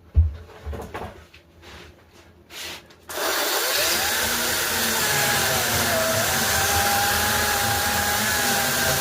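A few knocks and clicks of handling. About three seconds in, a battery-powered chainsaw starts and runs steadily, its motor whine dipping and wavering as it cuts into a camphor wood blank.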